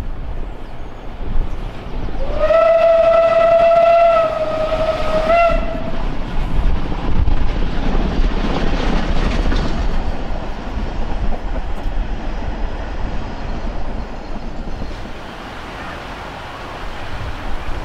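Steam whistle of Isle of Man Railway locomotive No. 12 Hutchinson: one long blast of about three and a half seconds, starting about two seconds in, with a short upward flick in pitch just before it stops. After it, the steady noise of the train running on the rails.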